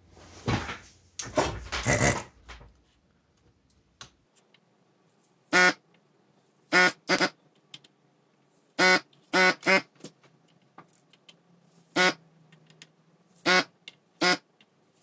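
Hakko FR-300 desoldering gun's vacuum pump firing in short pitched pulses as the trigger is pulled, sucking molten solder off circuit-board pads: about nine quick bursts in the second half, often two or three in rapid succession. A brief rustling noise comes first, in the opening two seconds.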